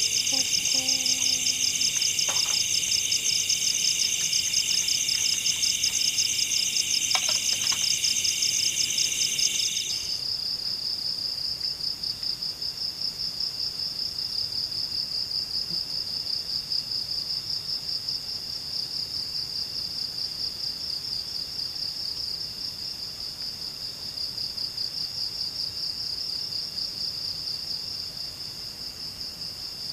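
Forest insects trilling steadily in a loud, high-pitched, finely pulsing chorus. About ten seconds in, the fuller chorus drops away suddenly, leaving a single steady trill.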